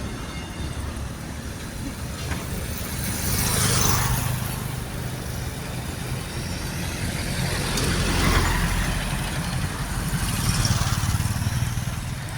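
Road traffic going by: vehicles pass one after another, the sound swelling and fading about four seconds in, again around eight seconds, and a third time near eleven, over a steady low engine rumble.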